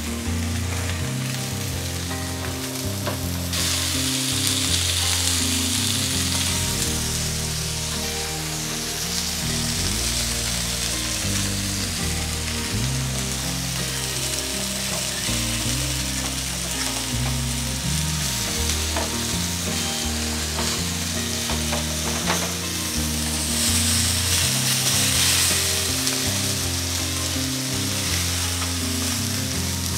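Masala-coated pomfret fish sizzling in hot oil on a flat iron tawa, with a spatula moving against the pan. The sizzle grows louder about three and a half seconds in, and is strongest a little before the end.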